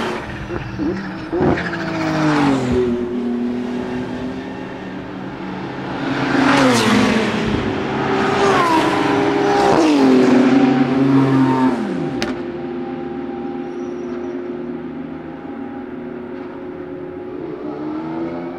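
BMW M4 GT3's twin-turbo 3.0-litre straight-six P58 engine at racing speed, passing close. Its pitch drops in several steps as it downshifts under braking, with a single sharp crack about 12 seconds in. A quieter, steadier engine note follows.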